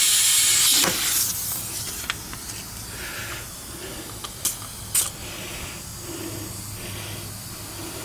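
Compressed air hissing from a hose's air chuck into a tire's valve stem as the tire is inflated, cutting off about a second in. About halfway through come two short, sharp spurts of air as a pencil tire gauge is pressed onto the valve stem.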